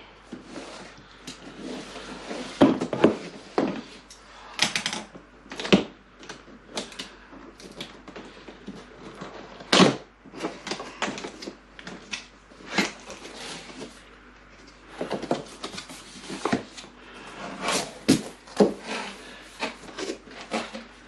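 Cardboard box and plastic packaging handled by hand during unpacking: irregular knocks, taps and rustling, with a few louder bumps.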